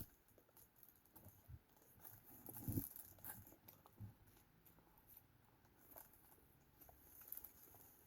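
Near silence with faint, scattered small clicks and soft wet mouth sounds of someone chewing food, with a slightly louder soft thump a little under three seconds in.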